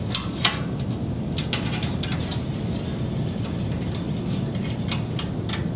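Scattered light plastic clicks and handling noise as a small cable tie is threaded through the slots of a fibre-optic chassis tray, over a steady low hum.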